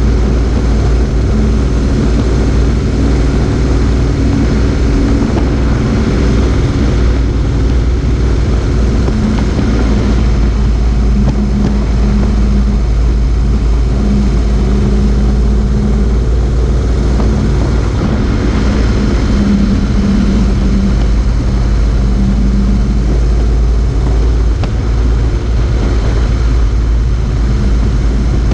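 Motorcycle engine running at a steady cruising speed, with heavy wind and road noise on a camera mounted low beside the front wheel.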